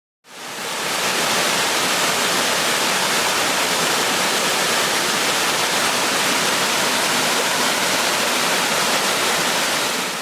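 Waterfall: a steady, loud rush of falling water that fades in at the start.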